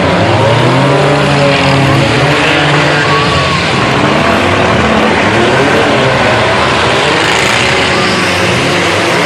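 Several demolition derby cars' engines running and revving at once, their pitches rising and falling over one another.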